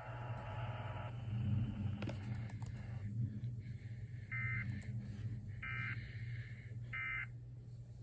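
Emergency Alert System end-of-message data bursts: three short, identical bursts of buzzing two-tone warble, about a second and a quarter apart, marking the end of the alert. Under them is a steady low hum from the receiver, with a hiss that stops about a second in.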